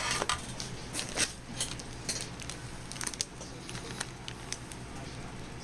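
Small clear plastic zip bag of screws and printer parts crinkling as it is handled, with a scatter of light irregular clicks and crackles.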